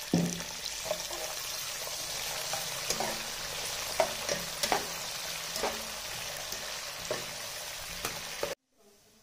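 Sliced onions sizzling in hot oil in a metal pot, stirred with a slotted metal spatula that knocks and scrapes against the pot every second or so. The sizzle cuts off suddenly near the end.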